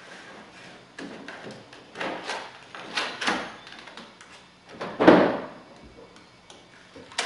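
Hands working at the edge of a pickup truck's bed: a few rustling, scraping knocks and one louder thump about five seconds in.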